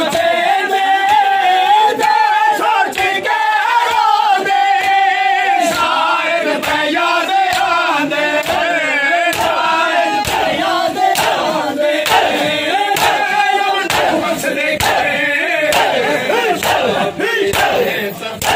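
A crowd of men chanting loudly together in a Muharram mourning chant (nauha), with sharp slaps of hands beating on chests (matam) sounding repeatedly throughout.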